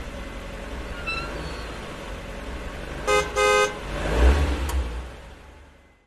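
Car engine running with a low rumble, and a car horn honking twice about three seconds in, a short beep then a longer one. The engine swells again about a second later, then the sound fades out.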